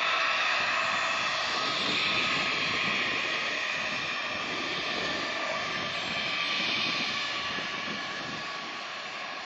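Jet airliner passing close by, its engines giving a steady rush of noise with a high whine over it, easing off slightly near the end.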